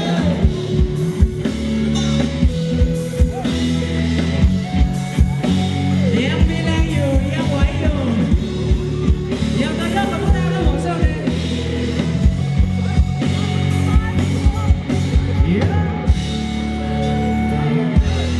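Live Thai ramwong dance band playing: a singer over a steady beat and melodic instruments.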